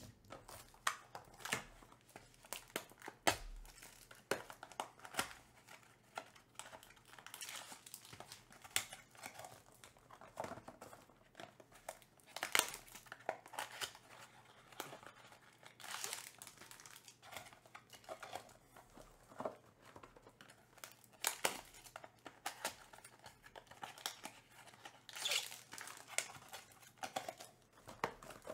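Baseball trading-card packs being opened and the cards handled: irregular crinkling and rustling of pack wrappers with short snaps of card stock, a few louder ones now and then.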